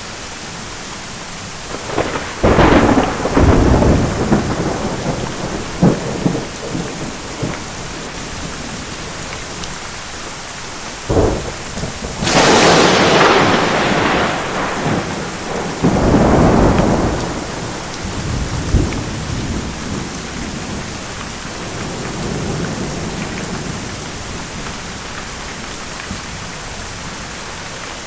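Steady heavy rain with a thunderstorm: thunder claps and rumbles come several times, the loudest a sharp close crack about twelve seconds in that rolls on into a long rumble, with another rumble a few seconds later.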